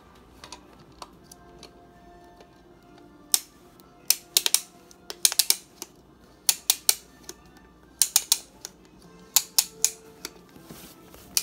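Small plastic toy clicking in hands: sharp clicks come in quick irregular clusters from about three seconds in as its parts are worked and fitted together.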